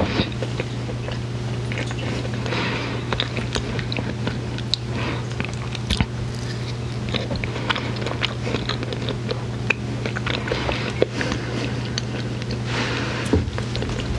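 Close-miked biting and chewing of chocolate candy, with many short scattered mouth clicks, over a steady low hum.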